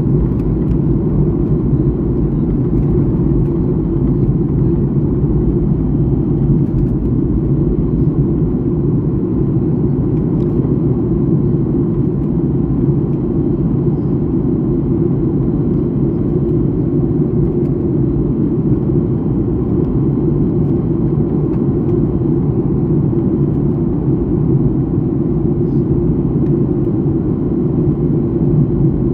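Steady, even rumble of a jet airliner's cabin in flight: engine and airflow noise heard from inside the passenger cabin, with most of the sound low down.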